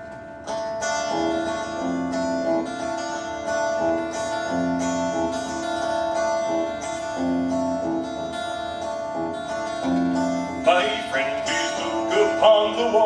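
Electric guitar playing an instrumental intro, a plucked phrase repeating about every three seconds. A man starts singing over it near the end.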